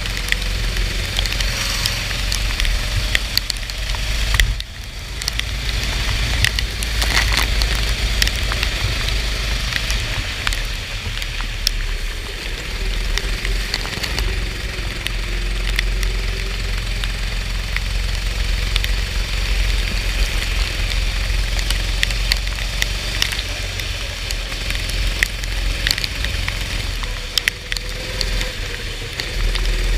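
Go-kart engine running at race pace, its pitch rising and falling with speed, under a constant crackling hiss of wind and rain spray on the onboard microphone. The level dips briefly about four and a half seconds in.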